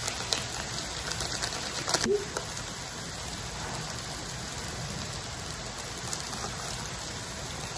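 Water and jjajangmyeon sauce sizzling steadily in a hot electric skillet, with a few light clicks in the first couple of seconds.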